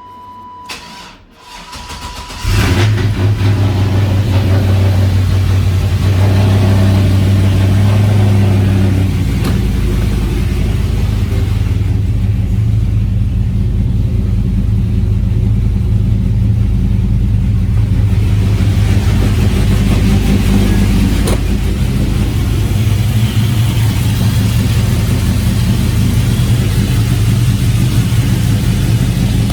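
Porsche Cayenne engine, jump-started from a portable jump-starter pack after a flat battery, catching about two seconds in and then idling steadily, settling slightly lower after several seconds. A steady beep sounds briefly at the start, before the engine fires.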